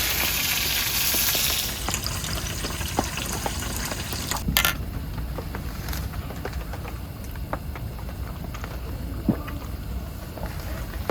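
Jeon (Korean pancake) frying in oil in a hot pan: a loud sizzle for about the first two seconds, then steady frying with scattered crackles and pops, one sharper pop about four and a half seconds in.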